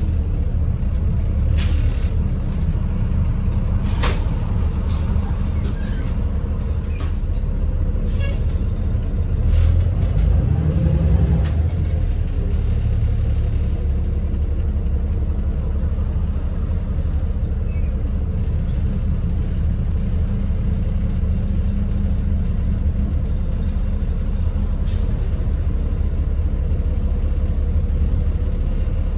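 Gillig Phantom transit bus heard from inside the cabin while under way: a steady low engine and road rumble, with a few sharp rattles from the body and fittings. The engine note swells briefly about ten seconds in.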